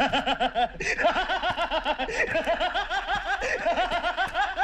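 Men laughing loudly and at length in rapid, repeated 'ha-ha' bursts. A deep male laugh is joined by other men's voices laughing over it.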